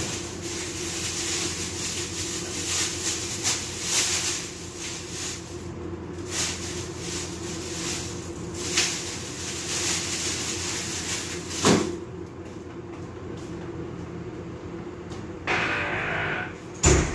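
Steady mechanical hum under a fluctuating noisy wash of kitchen activity, with scattered knocks and a sharp clack near the end.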